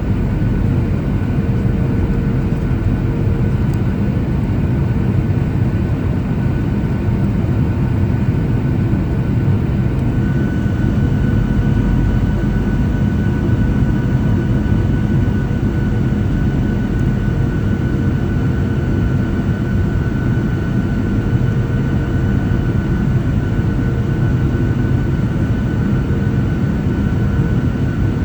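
Steady cabin noise inside a Boeing 737-800 on approach: the drone of its CFM56-7B turbofan engines and the rush of air over the fuselage, with a thin high tone that grows clearer about a third of the way in.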